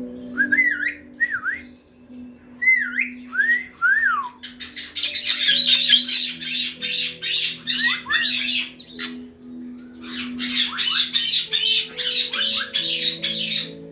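Caique parrots whistling in short rising-and-falling notes, then screeching in two long runs of rapid, harsh calls.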